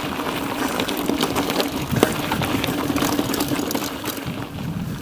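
Mountain bike being ridden over a rough track: frequent rattles and knocks from the bike over the bumps, over a steady hum.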